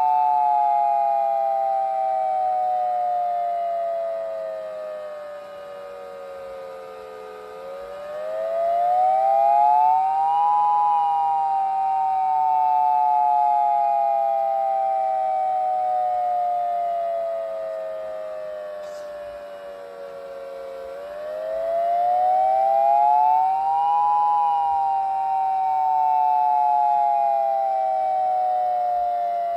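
Battery-powered model civil defense sirens sounding together in a two-note wail. The pitch falls slowly for about ten seconds, then rises over about three, twice, in the wavering pattern of the attack signal, with a faint steady tone beneath.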